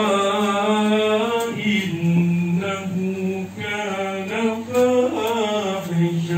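A man chanting a melodic Islamic recitation solo, in long held notes that waver and slide, the pitch stepping lower about two seconds in.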